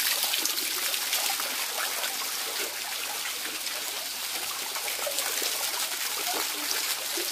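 Flowing stream water running steadily, an even unbroken noise of moving water.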